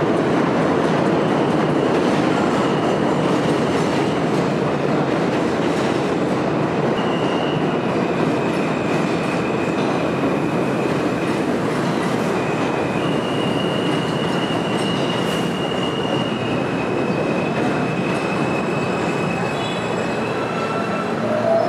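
R160 subway train running along the rails, a steady loud rumble of wheels on track. From about a third of the way in, high thin wheel squeals come and go over it.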